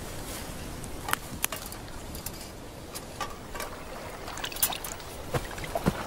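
Dry reed stalks and brush rustling and crackling, with irregular sharp snaps over a steady low hiss.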